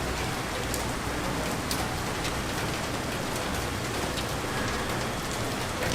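Steady rain falling and splashing on surfaces, with occasional sharper ticks of single drops.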